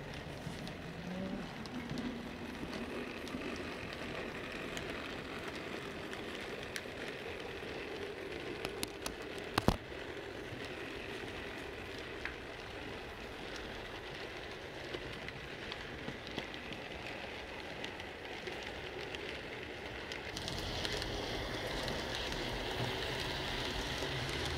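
00 gauge model trains running on the layout track: a steady rolling noise of motors and wheels on rail, with a few clicks and one sharp click about ten seconds in. It grows louder for the last few seconds.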